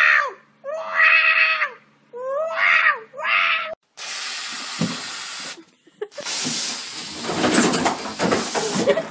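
A cat meowing four times in quick succession, each call falling in pitch, followed by two long stretches of steady hissing noise.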